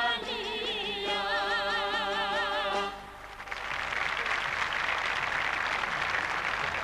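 Albanian folk singing group holds the song's final chord, a lead voice with wide vibrato over steady held voices, cutting off about three seconds in. Audience applause then rises and continues.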